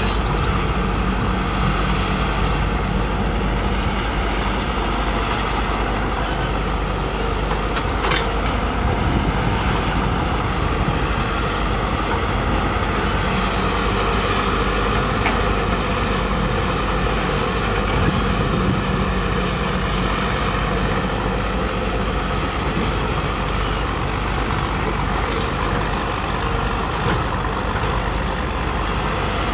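Diesel engines of heavy earthmoving machinery running steadily.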